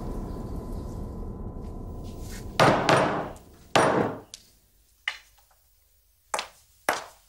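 Background music fading out, then two loud knocks on a wooden door about a second apart, followed by a few fainter footsteps of high-heeled shoes on a hard floor.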